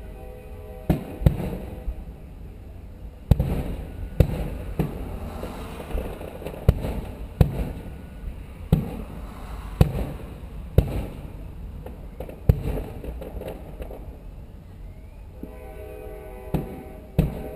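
Fireworks shells bursting overhead: a dozen or more sharp booms at irregular intervals, each trailing off in a short rumble. Near the end a steady horn starts sounding.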